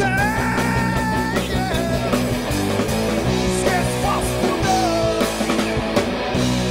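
Rock band playing live: guitar and drums under a male lead singer, who holds a long sung note at the start.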